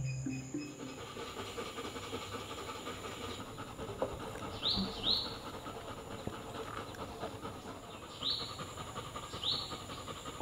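A bird gives four short rising chirps, two close together about halfway through and two more near the end, over a steady outdoor background hiss.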